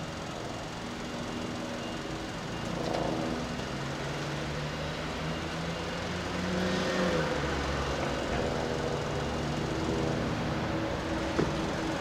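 Engines of heavy work vehicles and traffic running steadily, their pitch rising and falling as they rev a few times. A single sharp knock near the end.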